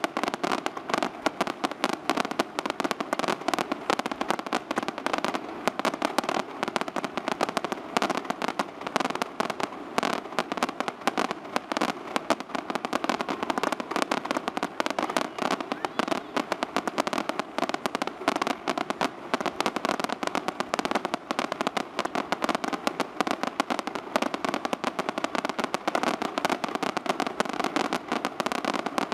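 Aerial fireworks display at full intensity: a dense, unbroken barrage of rapid bangs and crackling from many small shells bursting at once, with no pause.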